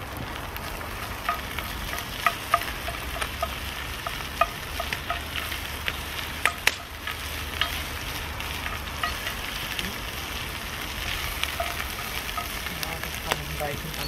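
Ground beef and onions frying in a cast-iron Dutch oven over a wood fire: a steady sizzle as the meat is stirred with a wooden spoon, with irregular sharp clicks and pops throughout.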